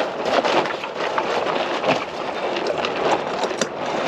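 A jib sail flapping and slapping in the wind as it is worked at the mast, with irregular sharp snaps and rattles over a steady rush of wind on the microphone.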